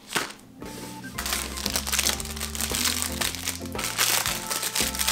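Background music with held notes, over the crinkling of a cottage-cheese packet's wrapper being torn open by hand.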